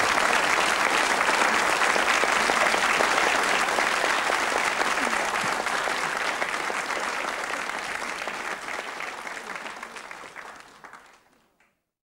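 Studio audience applauding, the clapping steady at first and then fading away over the last several seconds.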